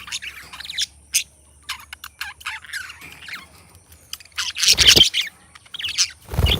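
Budgie chirping and warbling in rapid short calls, with two louder rough bursts, one a little past the middle and one at the end.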